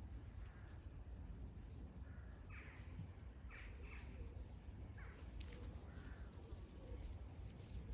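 About five short, harsh animal calls, a few tenths of a second each, from about two and a half seconds in to about six seconds in, over a faint low rumble.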